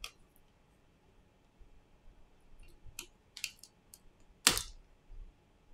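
Small sharp clicks and taps from a pry tool working at the board and connectors of an opened smartphone, several about three to four seconds in and one louder click about four and a half seconds in.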